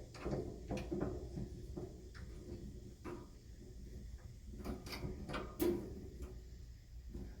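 Scattered light knocks and clunks of things being handled, a few sharper clicks among them, over a low steady hum.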